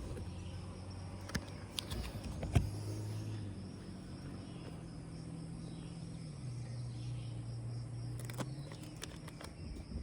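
Insects, crickets or the like, chirping steadily, over a low hum that shifts pitch a couple of times. A few sharp clicks and taps from handling the repair tape and materials come through it.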